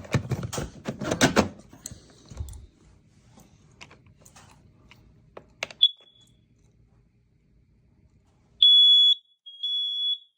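Kidde 30CU8ARVA smoke and carbon monoxide alarm: handling clicks, then a sharp click with a brief high chirp about six seconds in, then near the end it sounds its test alarm, two high-pitched steady beeps, the first louder.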